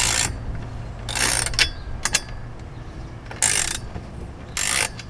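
Ratcheting wrench clicking in about five short bursts as it turns a nut on the side of a steel antenna J-mount bracket.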